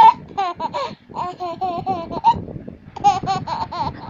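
A young girl laughing in high-pitched, wavering runs of giggles, broken by short pauses.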